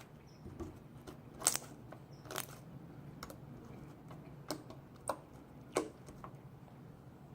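Clear glue slime being kneaded and squeezed in the hands, giving off about six sharp sticky clicks and pops at irregular intervals over a faint low hum.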